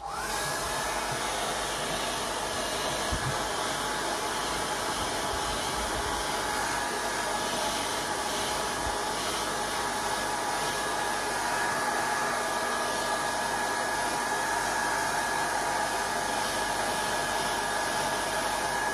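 Hair dryer switched on, its motor whine rising briefly as it spins up, then blowing steadily.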